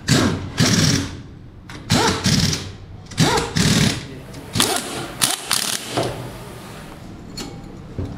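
Corded electric power screwdriver driving screws into a motorcycle engine's crankcase, whirring in a string of short bursts, each under a second, its pitch rising and falling as the motor starts and stops.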